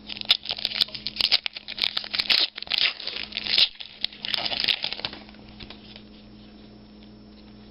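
Foil trading-card pack wrapper being torn open and crinkled: a run of sharp crackles and rips for about five seconds, which then stop, leaving a faint steady hum.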